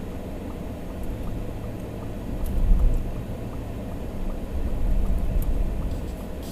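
Low vehicle rumble heard from inside a pickup's cabin, swelling about two and a half seconds in and again around four and a half seconds in.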